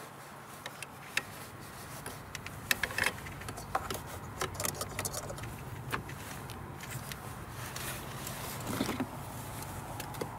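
Scattered light clicks and handling rustle of plastic-insulated crimp connectors being worked together by hand: a male spade connector pushed into the female connector on a fuse-tap lead.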